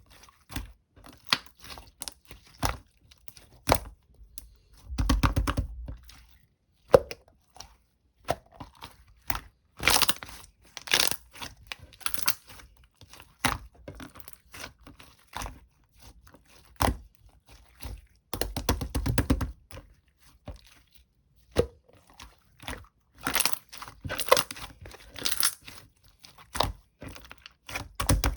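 Kiwi sherbet slime being squeezed, stretched and pressed by hand: an irregular run of clicking, crackling pops, with louder squishy clusters now and then.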